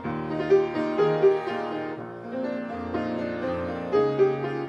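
Grand piano playing a solo instrumental passage of show-tune accompaniment, with no singing.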